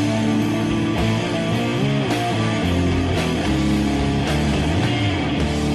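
Psychedelic rock music with guitar and long held notes over a steady beat that falls about once a second.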